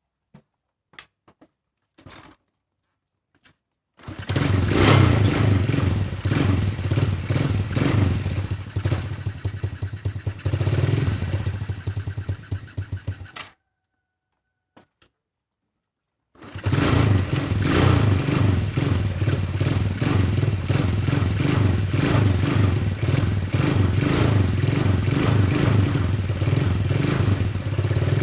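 Motorcycle engine starts up and runs with a fast, even beat, having refused to start after standing unused until its cylinder head was warmed with hot water. It cuts off abruptly, is silent for a few seconds, then is running again. A few faint clicks come before it first starts.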